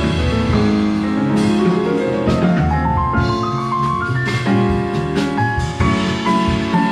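Jazz piano trio played by automated instruments: a self-playing Yamaha grand piano, an upright bass and a drum kit with cymbals. The piano plays a rising run about two seconds in.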